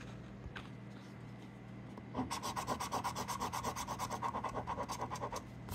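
A plastic scratcher coin scraping the coating off a scratch-off lottery ticket in quick back-and-forth strokes. The scratching starts about two seconds in, runs for about three seconds and stops shortly before the end.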